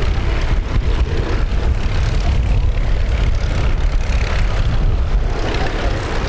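Boeing B-17G Flying Fortress's four Wright Cyclone radial engines droning steadily in flight: a deep, even rumble with no change in pitch.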